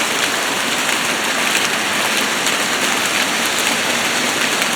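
Heavy rain pouring down in a steady hiss, with a dense patter of individual drops striking surfaces.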